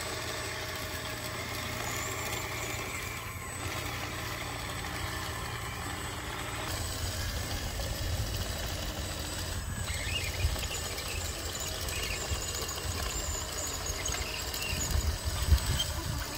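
Radio-controlled crawler bulldozer running steadily with an engine-like rumble as it drives and pushes dirt, growing louder about halfway through and again near the end.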